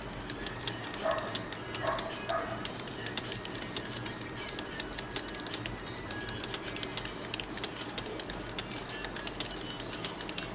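Fast, continuous typing on a computer keyboard: a dense stream of key clicks during a timed typing-speed test. A few short pitched chirps sound between about one and two and a half seconds in.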